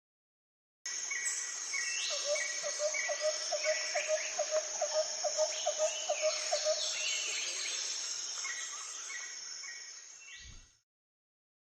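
Outdoor nature ambience: birds calling over a steady high insect drone and hiss, with a run of lower calls repeating about three times a second in the middle. It starts suddenly and cuts off abruptly near the end.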